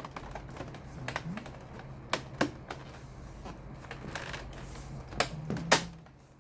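Plastic back cover of an all-in-one desktop PC being pressed down, its clips snapping into place in a scattered series of sharp clicks, the loudest about two seconds in and twice near the end.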